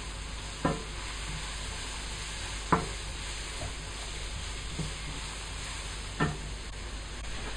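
Sliced spring onions sizzling steadily in hot oil in a frying pan, stirred with a wooden spatula that knocks against the pan about four times.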